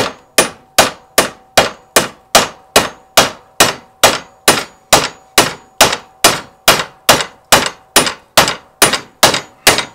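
Hammer striking a metal bar clamped in a bench vise, bending it: a steady run of sharp metallic clangs about two and a half blows a second, with a faint ring hanging on between blows.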